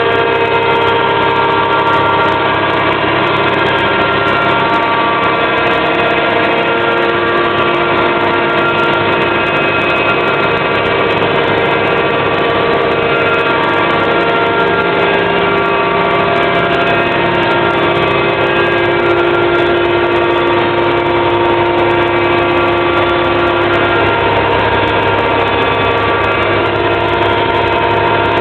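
Homemade CNC milling machine running: a loud, steady machine whine made of several tones, whose pitches shift every few seconds as the machine works.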